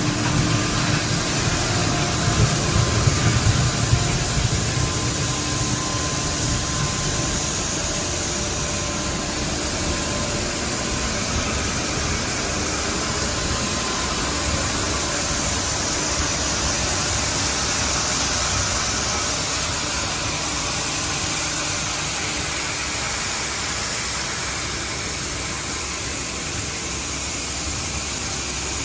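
Plastic film pelletizing line running: steady, even machine noise from its motors and extruder drive, with a constant hiss and a faint hum. A stronger low rumble fills the first few seconds.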